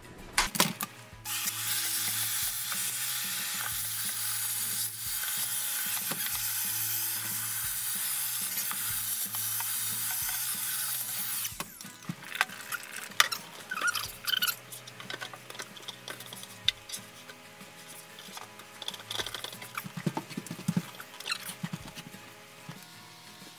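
Handheld vacuum cleaner running steadily for about ten seconds as it sucks dry crumbs and spilled baking ingredients out of a drawer, then cutting off. After it stops come lighter scrapes and clicks.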